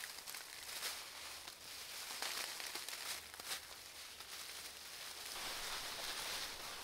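Dried grass clippings rustling as they are tossed onto a compost pile in scattered handfuls. In the last couple of seconds a garden hose sprayer sets in with a steady hiss, wetting the pile.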